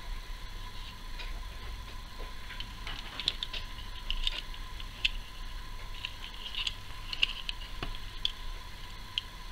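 Small irregular clicks and taps as a diecast metal toy car is handled in the fingers, its opening doors clicking and the body knocking against fingernails.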